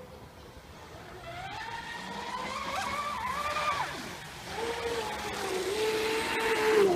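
Electric motor of an RC catamaran speedboat whining as it runs, the pitch rising and falling with the throttle; it grows louder, eases off briefly about four seconds in, then builds again.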